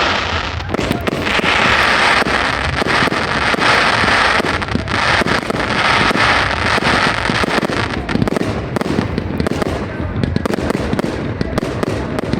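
Fireworks display: a dense barrage of rapid bangs and crackling, with a hissing crackle that is thickest over the first several seconds and thins a little toward the end.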